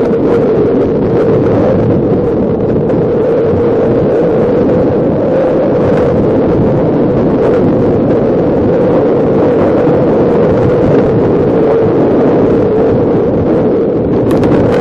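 Loud, steady wind noise: an even rushing with no breaks or distinct events.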